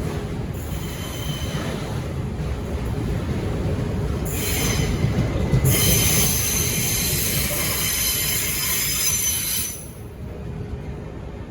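Freight train rolling past with a steady low rumble of wagons on the rails. From about four seconds in, steel wheels squeal high and shrill against the rails, loudest around six seconds, cutting off sharply near ten seconds.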